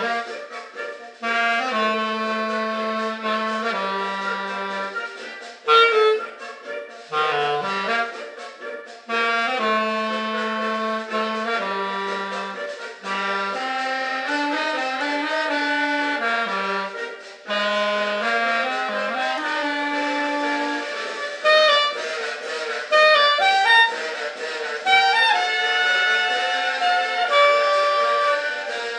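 Instrumental music on a reed instrument: sustained notes and chords over a moving low line, played in phrases with short breaks between them.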